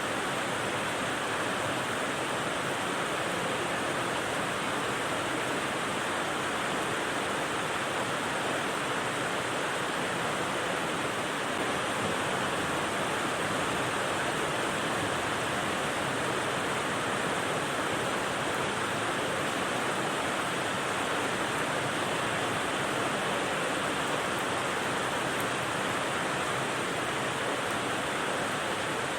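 Steady rain as a white-noise bed: an even, unchanging hiss with no separate drops, thunder or other events standing out.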